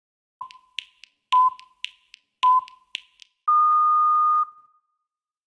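Workout interval timer counting down: three short beeps about a second apart, then one long, slightly higher beep cueing the switch between exercise and rest, with short sharp clicks between the beeps.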